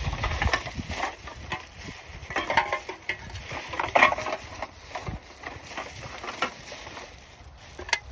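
Irregular clinks, crinkles and rustles of litter picking: empty aluminium drink cans being handled and dropped into a rubbish bag that is nearly full.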